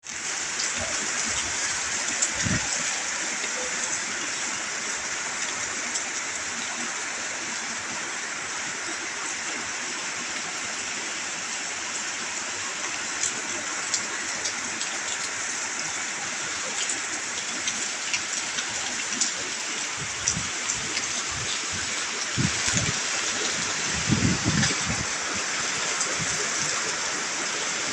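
Steady rushing noise of water in a flood, with a few brief low thumps, most of them in the last third.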